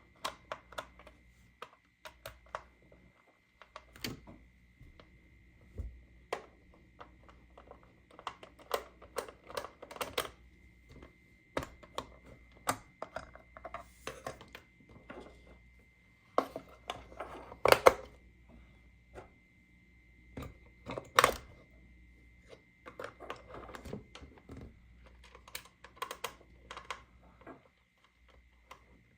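Plastic toy playset pieces being handled: irregular clicks, taps and light clatter, with short pauses in between.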